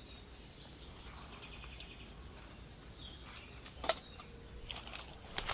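Insects in tropical vegetation shrilling in a steady, high-pitched drone, with two brief clicks about four and five seconds in.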